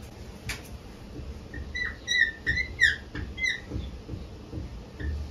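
Dry-erase marker squeaking on a whiteboard as letters are written: a quick run of short, high squeaks, some sliding in pitch, between about two and four seconds in.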